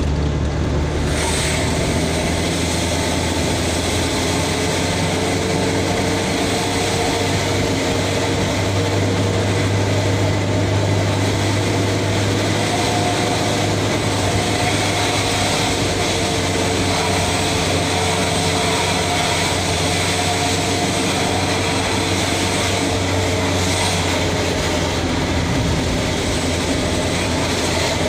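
Light truck's engine running steadily under way, heard from inside the cab as an even, continuous drone mixed with road noise.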